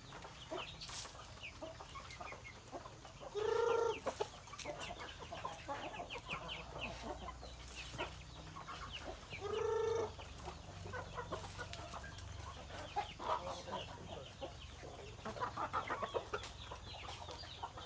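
A flock of chickens clucking and chattering while they feed, with two louder, short pitched calls, one about three and a half seconds in and one about nine and a half seconds in.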